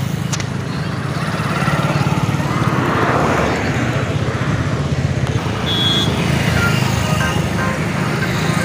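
A motorcycle ridden along a busy road: the engine runs steadily under wind and traffic noise. A brief high beep sounds about two-thirds of the way through.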